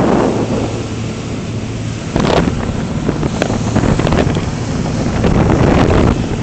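Crew boat under way: its motor running beneath heavy wind buffeting the microphone and water rushing past the hull, with a couple of brief slaps or splashes partway through.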